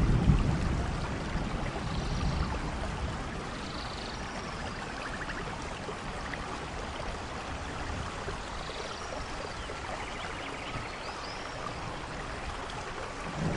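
Rainforest ambience: a steady rush of falling water, with a low rumble that fades over the first couple of seconds and a few short animal calls scattered through it.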